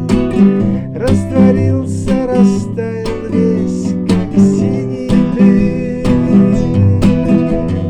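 Acoustic guitar strummed in a steady rhythm: an instrumental passage of a song.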